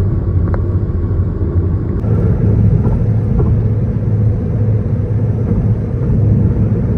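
Steady low rumble of a car cruising at highway speed on cruise control: tyre, road and engine noise.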